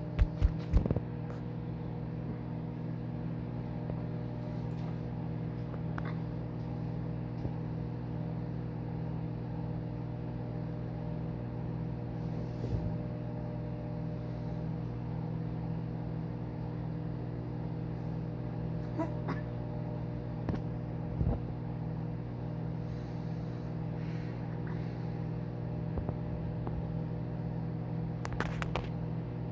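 Microwave oven running with a steady electrical hum. There are a few sharp clicks in the first second and only scattered faint ticks after that.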